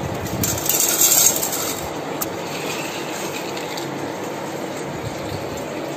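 A plastic tub of water scraping across a wooden tabletop for about a second, starting half a second in, followed by a single light click. A steady background hiss runs underneath.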